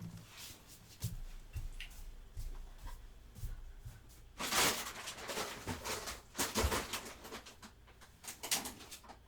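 Faint rustling and knocks of someone moving about and handling things in another room, a few louder rustles about halfway through and near the end.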